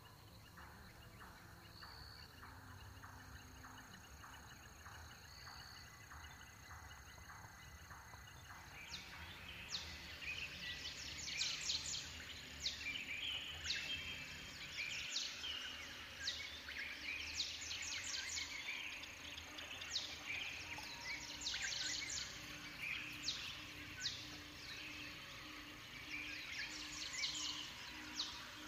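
Rainforest ambience of calling birds and insects. At first a faint steady high tone with regular ticking, then from about nine seconds in a dense chorus of quick falling chirps, with a low pulsing note joining in the second half.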